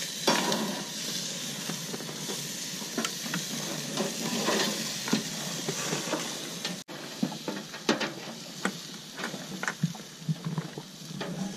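Burger patties sizzling on a grill, with scattered clicks and scrapes of a metal spatula against the grate as they are turned.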